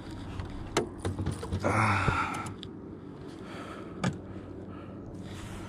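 Handling noise as a freshly caught bass and its lure are held in a boat: a few sharp clicks and a short rustling burst about two seconds in.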